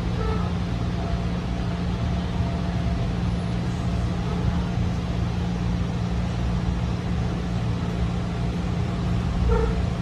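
Running sound of a JR 211 series electric train heard from inside the passenger car: a steady rumble of wheels on rails with a low, even hum. A short squeak comes about nine and a half seconds in.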